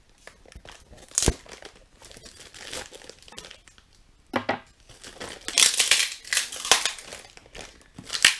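Cardboard parcel being opened by hand: packing tape and cardboard tearing and plastic wrapping crinkling, densest in the second half. A single sharp click a little over a second in.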